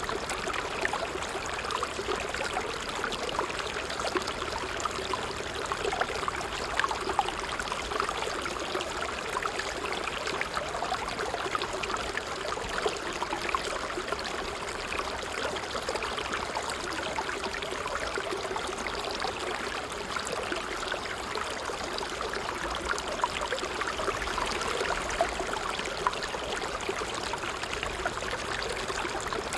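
Water trickling and splashing steadily in a small stream, a continuous babble made of many small quick splashes.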